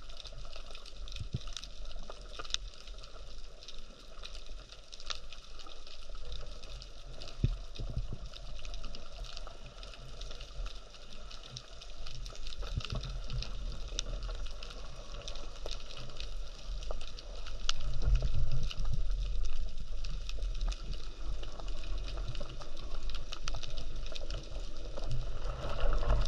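Underwater ambience picked up by a gun-mounted action camera in its waterproof housing: a steady crackle of small clicks over a low rumble of moving water, which grows louder about two-thirds of the way through.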